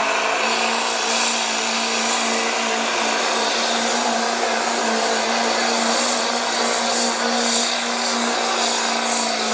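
Chevrolet Silverado diesel pickup's Duramax V8 at full throttle under heavy load, pulling a sled. It makes a loud, steady drone that holds one pitch throughout.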